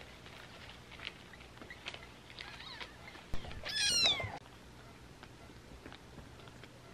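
A newborn kitten gives one loud, high mew about four seconds in, falling in pitch. A sharp click comes just before it, and fainter small clicks and squeaks come earlier.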